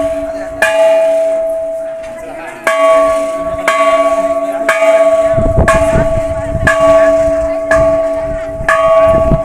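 Large brass hanging temple bell struck over and over, about once a second after a short pause near the start. Each stroke rings on and overlaps the next, so the bell's tone never dies away.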